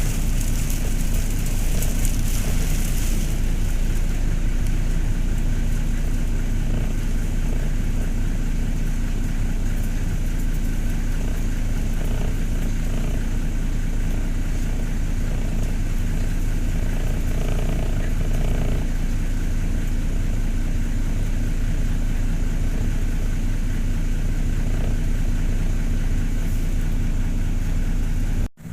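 A boat's engine running steadily under a hiss of wind and driving rain or hail that is heaviest in the first few seconds; the sound cuts off abruptly near the end.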